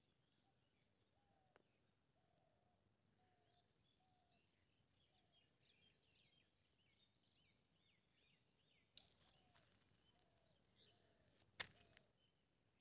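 Faint birdsong over near silence: many small high chirps, and a lower short call repeated about once a second. A sharp knock comes near the end, with a weaker one a few seconds before it.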